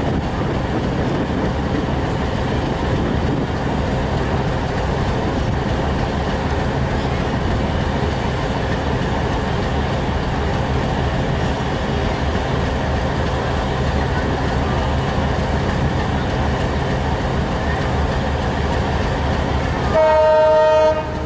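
Diesel locomotive hauling a passenger train, its engine and the wheels on the rails making a steady rumble. Near the end the locomotive's horn sounds one loud blast of about a second.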